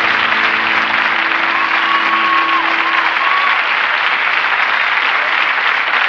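Audience applauding steadily, with the band's last held note dying away under it in the first half.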